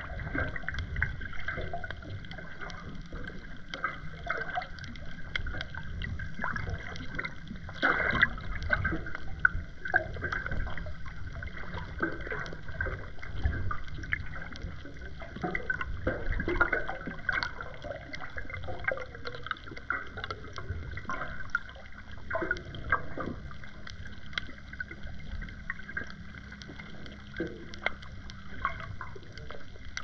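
Underwater ambience picked up by a submerged action camera: a steady, muffled low rumble of moving seawater with frequent faint, irregular clicks and crackles.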